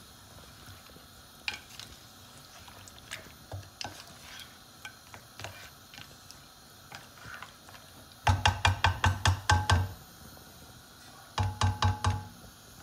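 Wooden spoon stirring meat in a steel pot: light scrapes and taps, then two bursts of quick, ringing knocks of the spoon against the pot, about eight seconds in and again near the end.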